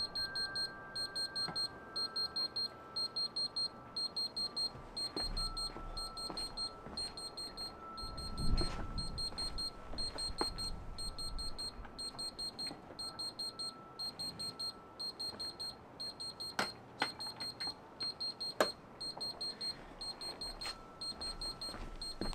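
High-pitched electronic alarm beeping in rapid groups of about four, repeating about once a second, stopping shortly before the end. The smoker's door shuts with a thump about eight seconds in, and a few sharp clicks follow.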